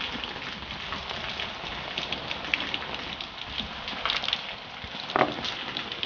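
Rain pattering steadily, a dense spread of small drop ticks, with a single short knock about five seconds in.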